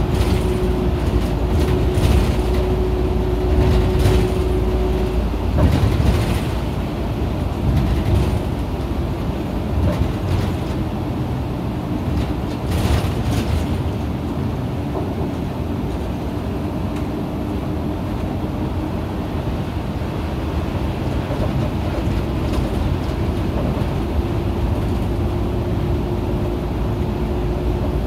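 Isuzu KL-LV280N1 route bus under way, heard from inside the cabin: engine and road rumble with a steady whine that drops in pitch mid-way and rises again near the end. A few short knocks or rattles come through.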